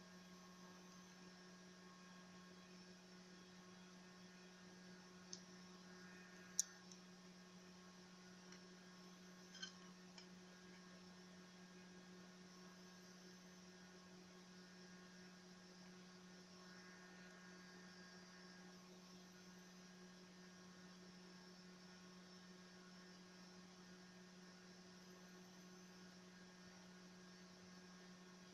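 Near silence with a steady low electrical hum. A few light clicks of the metal-cased drive being handled, the sharpest about six and a half seconds in.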